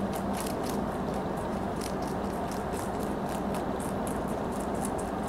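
A rabbit chewing kale: quick, crisp crunches, about three or four a second, over a steady low background hum.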